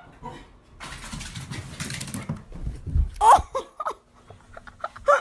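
Small fluffy dog barking: one loud bark about three seconds in, a few short yips after it, and another bark near the end, after a stretch of rustling noise.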